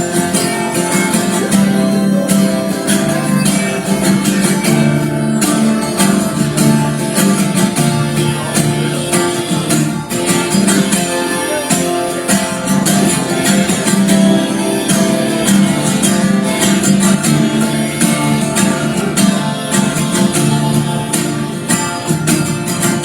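Acoustic guitar strummed steadily through an instrumental break in a live folk-rock song.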